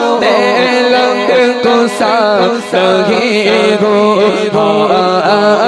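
A man singing a naat, an unaccompanied-style Urdu devotional hymn, into a microphone, in long ornamented phrases that wind up and down in pitch over a steady low drone, with short breaks between phrases.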